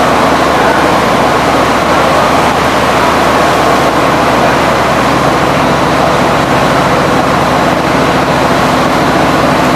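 Sugarcane crushing mill running: loud, continuous machinery noise with a steady low hum that does not change.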